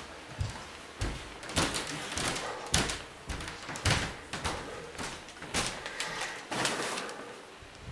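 Belongings being handled and set down: a string of rustles and light thumps, roughly one every second or less.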